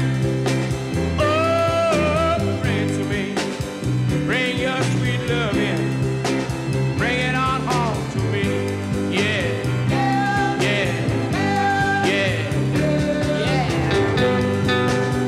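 Music: a song with a gliding melody line over a steady bass line.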